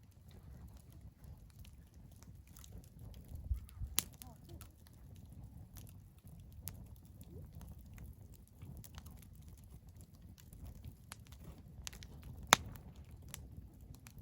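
Wood fire crackling in a fire pit: scattered irregular pops and snaps, the loudest about four seconds in and near the end, over a low steady rumble.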